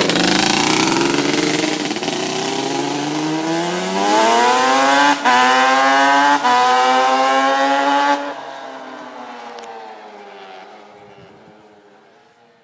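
Yamaha Banshee's twin-cylinder two-stroke engine on aftermarket T6 pipes accelerating hard, its crisp, buzzy note climbing in pitch and holding high with two brief breaks. About eight seconds in it drops off sharply as the throttle closes, then fades into the distance.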